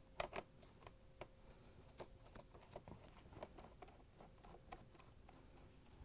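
Faint, irregular clicks and ticks of a hand-held 1/4-inch nut driver turning out screws from the plastic housing of a GE dishwasher user interface board.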